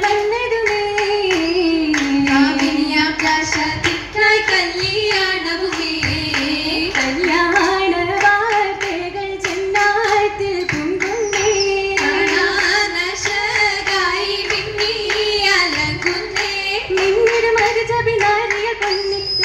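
Oppana: female voices singing an Oppanappattu (Mappila song) as one melody line, with the performers' rhythmic hand claps running under it.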